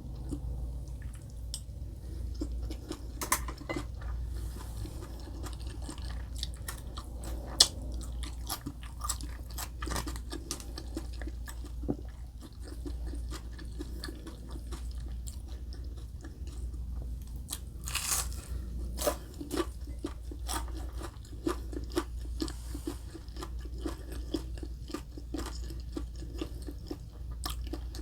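Close-miked chewing and biting of crunchy breaded chicken katsu, with many small wet clicks and smacks, a sharp crunch about seven and a half seconds in and another loud crunch around eighteen seconds.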